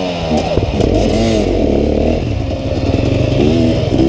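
Dirt bike engines revving hard as the bikes pull away and accelerate, the engine note climbing and dropping again and again as the rider works the throttle through the gears.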